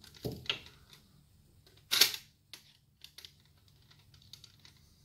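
A few sharp plastic clicks and knocks from the loading tray mechanism of a disassembled DVD player being handled. The loudest click comes about two seconds in, followed by a few faint ticks.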